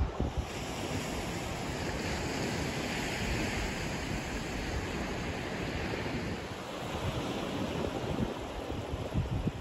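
Sea surf washing on a sandy shore, a steady hiss that swells and eases over several seconds, with wind buffeting the microphone.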